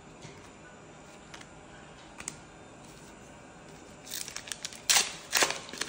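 A few faint clicks of trading cards being handled, then a foil booster-pack wrapper crinkling and tearing open in a quick run of sharp crackles over the last two seconds.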